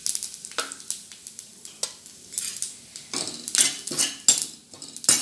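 Metal spoon scraping and clinking against a kadai while stirring cumin seeds dry-roasting in a little oil. The strokes are scattered at first and come quicker and louder from about halfway through.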